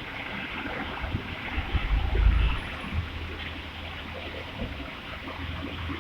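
Cable pay-off/take-up machine running: a steady mechanical hiss with a low hum, and a louder low rumble about two seconds in.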